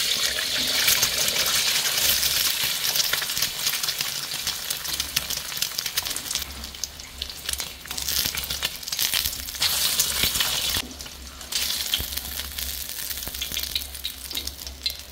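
An egg frying in hot oil in a pan: a steady crackling sizzle that dips briefly twice.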